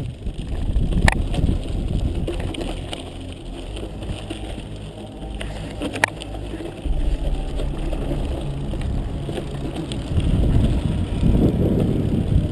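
Mountain bike riding down a rocky gravel trail, heard from the rider's action camera: a steady rumble of tyres and wind on the microphone, with sharp knocks from the bike over rocks about a second in and again near six seconds. The rumble grows rougher and louder near the end.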